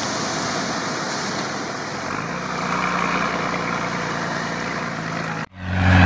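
Mercedes-Benz Unimog truck driving through a flooded field: a steady engine drone under the rushing splash of water thrown up by its wheels. About five and a half seconds in the sound breaks off for an instant and comes back louder.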